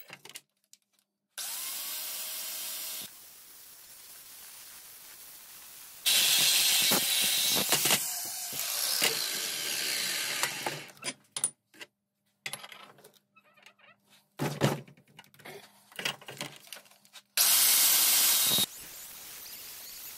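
Angle grinder with a cut-off disc cutting through 10mm steel plate clamped in a vise, in several loud stretches that start and stop abruptly. Between the cuts there are sharp metal knocks and clanks.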